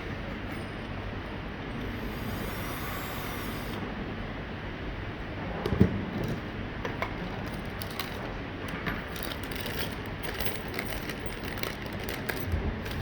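Handling noise from fitting a door lock's hardware with screws: a knock about six seconds in and scattered small metallic clicks and taps, over a steady background hiss.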